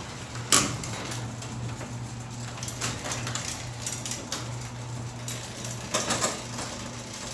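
1975 Sears garage door opener running with a steady electric-motor hum, moving the door, with sharp clicks and rattles about half a second in, near three seconds and around six seconds.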